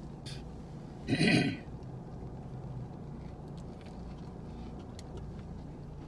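Two people biting into and chewing burgers inside a car cabin: faint scattered clicks of chewing and wrapper handling over a steady low hum from the car. A short loud vocal sound comes about a second in.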